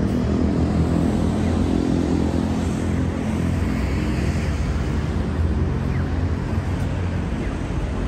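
Road traffic at a busy street intersection: a steady low rumble of vehicle engines.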